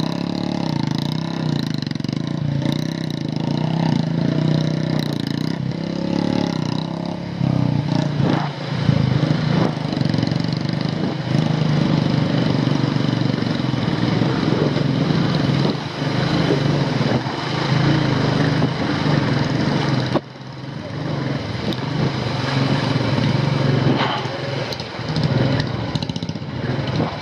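Royal Enfield 350's single-cylinder four-stroke engine running at low revs in first gear, labouring over a flooded, rocky track, with a steady rush of water behind it and scattered knocks.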